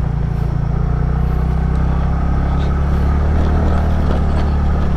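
Motorcycle engine running steadily under way at low speed, with a low, even drone and road and wind noise.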